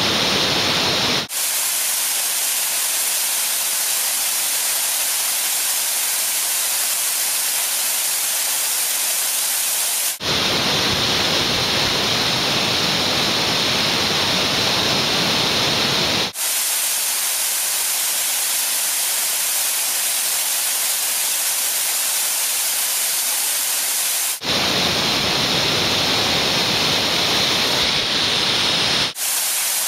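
Waterfall right at the microphone: a loud, steady rush of falling water. Its tone switches abruptly several times between a fuller, deeper rush and a thinner, hissier one.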